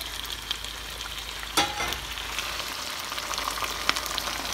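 Browned chicken pieces and sauce sizzling steadily in a hot pan, with one sharp knock about a second and a half in.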